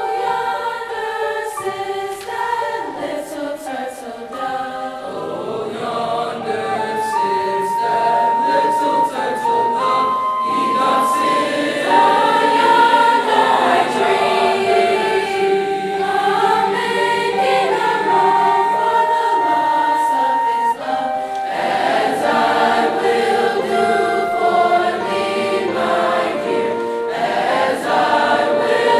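Mixed choir singing, with a flute holding long, steady notes above the voices.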